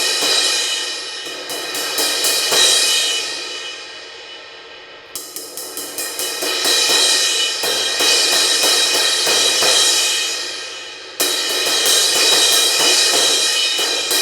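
Meinl Soundcaster Fusion 18-inch medium crash cymbal, its edge crack repaired out, struck in quick repeated strokes that swell into a bright, ringing wash. There are three runs: the first dies away before a new run starts about 5 seconds in, and the third starts about 11 seconds in.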